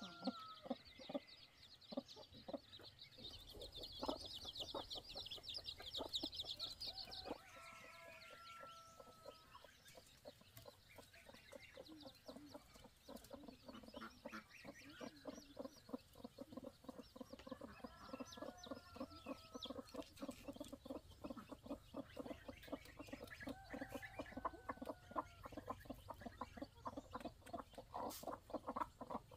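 Chickens clucking from woven bamboo coop baskets: rapid short clucks with a few longer drawn calls, and a high chirping in the first several seconds.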